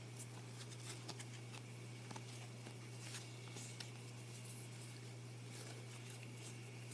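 Baseball trading cards being handled and flipped through by hand: faint rustling and scattered light clicks, over a steady low hum.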